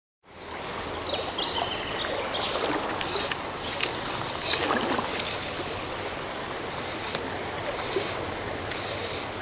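Shallow stream flowing and rushing around a wader's legs, with scattered small splashes from wading. It comes in just after the start, cutting in from silence.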